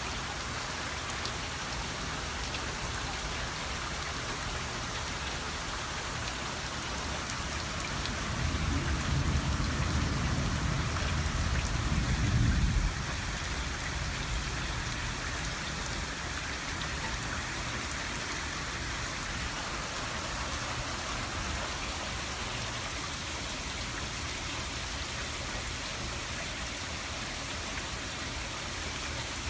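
Steady heavy rain falling during a thunderstorm, with a low rumble of thunder starting about eight seconds in, building to its loudest around twelve seconds and cutting off about a second later.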